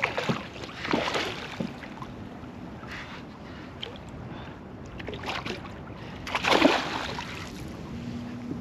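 Choppy water lapping against a canoe hull, with wind on the microphone. A few brief sharp noises stand out, the loudest about six and a half seconds in.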